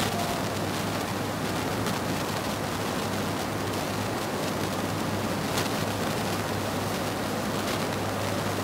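Steady hiss with a constant low hum underneath, with a few faint strokes of a marker writing on a whiteboard.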